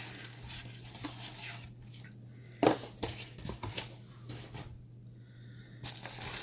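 Packaging being handled and unwrapped, with rustling and crinkling and a sharp tap about two and a half seconds in, over a faint steady low hum.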